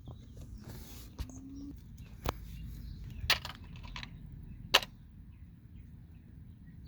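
Four sharp clicks and taps, the last the loudest, as small hardware and tools are handled, over a low steady rumble.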